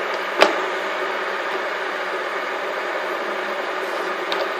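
Several fidget spinners whirring steadily on a hard floor, with a sharp click about half a second in as another spinner is flicked or set down, and a fainter click near the end.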